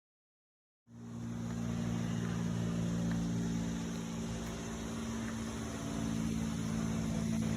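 Steady mechanical hum, a low drone of several even tones under a hiss, starting abruptly about a second in.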